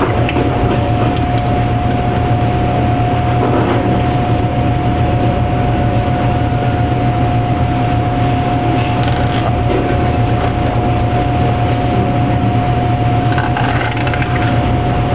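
Kitchen machinery running: a steady, loud drone with a deep hum and a constant whine that does not change.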